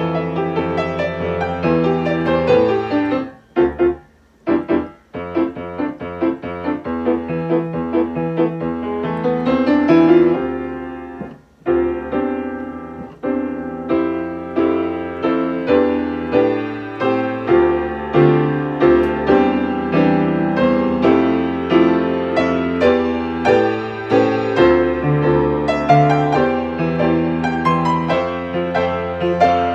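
1972 Yamaha G3 grand piano playing a lively choir accompaniment at about 144 beats a minute, with a few short detached chords separated by brief silences about four seconds in and another short break near the middle. Its worn action returns keys unevenly, which the player says makes right-hand chords come out slightly staggered.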